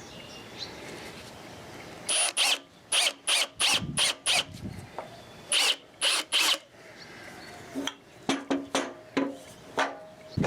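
Framing hammer striking a screwdriver, used as a punch to drive out a broken-off wood screw. There are quick metallic strikes, about three a second, each with a short high ring: a run of eight, three more a little later, then lighter taps near the end.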